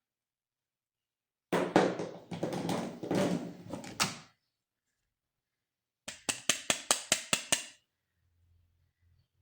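Plastic toy packaging being handled: a few seconds of rustling and knocking, then a quick run of about eight sharp clicks.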